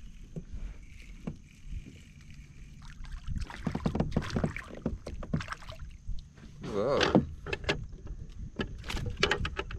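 A crappie being reeled in and landed beside a fishing kayak: splashing, sharp clicks and knocks of reel and gear, over a low steady rumble of wind and water. A short wavering vocal sound comes about seven seconds in.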